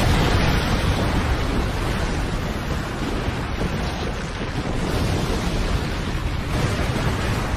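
Heavy rain falling steadily with wind, a dense hiss over a deep rumble.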